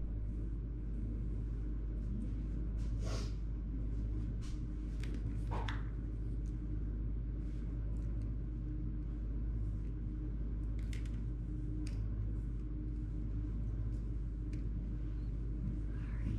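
A steady low hum, with a few faint clicks and taps scattered through it.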